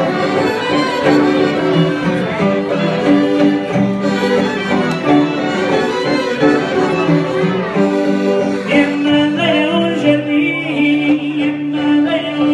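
Live band playing folk dance music: a sustained melody over a steady accompaniment, with a wavering higher line entering about two thirds of the way through.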